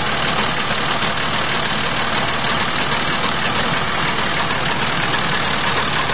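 Tractor diesel engine running steadily on an 80% jatropha biodiesel, 20% fossil diesel blend.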